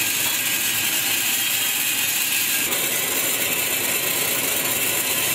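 Grain-roasting machine running, its rotating drum tumbling raw grain inside with a steady, dense rattle.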